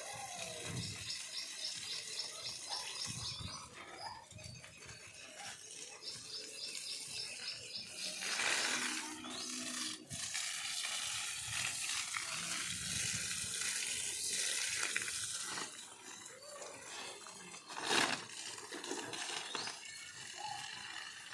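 Water running and splashing onto plants, with louder surges about eight seconds in and near the end. A bird's quick, high trill sounds twice early on.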